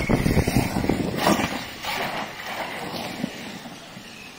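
Large-scale RC car driving, loud and crackly for the first second and a half, then fading as it moves away.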